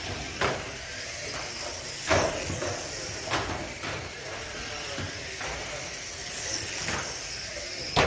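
Small electric radio-controlled racing cars running on a carpet track: a steady high whine and hiss, broken by several sharp knocks. The loudest knocks come about two seconds in and right at the end.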